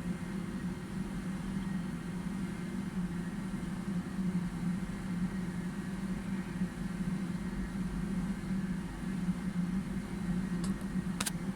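Electric mixer motor running steadily, mixing a batter. Two short clicks come just before the end.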